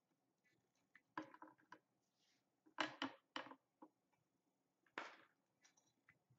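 Quiet handling sounds of a porcelain plate being turned on a table and marked with a felt-tip pen: a few soft knocks and rubs, the loudest cluster about three seconds in and another about five seconds in.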